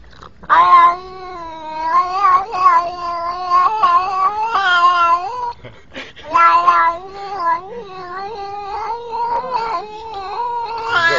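Domestic tuxedo cat yowling: long, drawn-out meows whose pitch wavers up and down, in two long stretches with a short break about halfway through.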